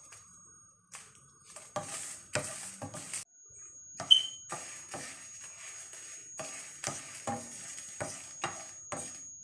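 A spatula stirring and pressing whole dried red chillies in a dry frying pan: a string of short scrapes and knocks, with one sharp ringing clink about four seconds in.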